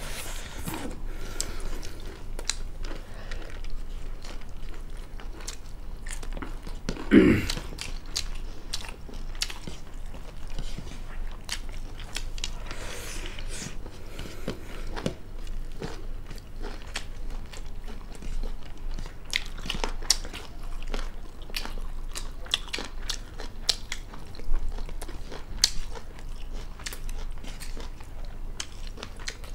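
Close, wet chewing and crunching of a meal of rice and fried chicken gizzard eaten by hand, with many small sharp clicks of biting and fingers on the plates. There is one louder thump about seven seconds in.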